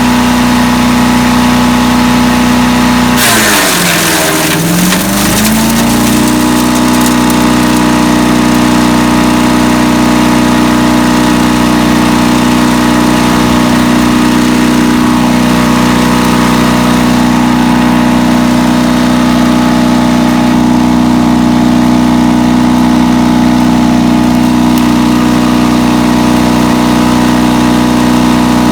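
Landworks 7 hp wood chipper's single-cylinder gas engine running at a steady speed. About three seconds in, a burst of grinding noise comes as it drops in speed under load, then it recovers and runs steadily again.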